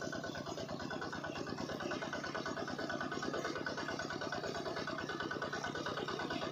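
Miniature model engine running steadily as it drives a small water pump, with a fast, even chatter.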